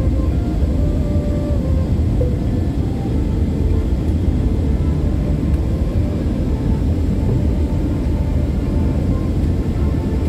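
Steady cabin noise inside an Airbus A321-211 jetliner on descent: its CFM56 turbofan engines and the airflow make a deep, even rumble.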